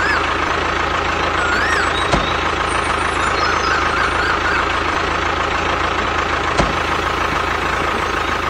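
A tractor engine runs steadily at one speed, with a steady high whine through it. A few faint chirps come in the first half, and there are two short clicks.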